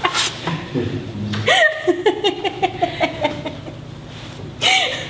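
A woman laughing hard in runs of quick pulsed 'ha-ha' bursts, broken by sharp breaths drawn in three times.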